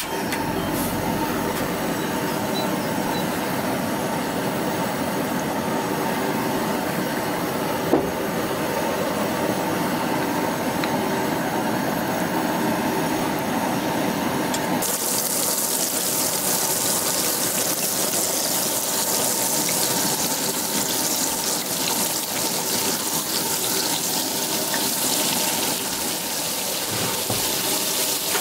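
Steady hiss of a Primus two-burner gas stove heating a stainless frying pan. About halfway through the hiss turns abruptly brighter and crackly as butter and olive oil start sizzling in the pan. There is one sharp tap about eight seconds in.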